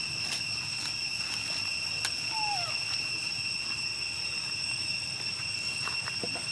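Steady, high-pitched drone of insects, crickets or cicadas, with a few faint clicks and one short falling squeak about two and a half seconds in.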